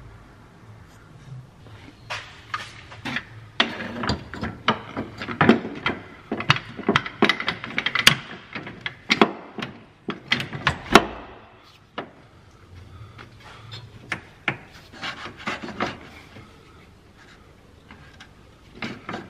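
Hand tools and metal rear-suspension parts knocking, clicking and scraping in irregular clusters while a coil spring is compressed and removed, with a pause of a couple of seconds about two-thirds of the way through.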